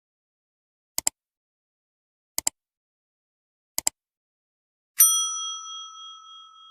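Three quick double clicks about a second and a half apart, then a single bell ding that rings on and slowly fades: an outro sound effect of the like, subscribe and notification-bell kind.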